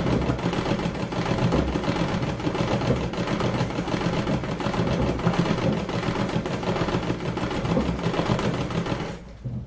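Treadle sewing machine stitching steadily at speed in free-motion embroidery, a fast, even clatter of needle and mechanism, which stops near the end.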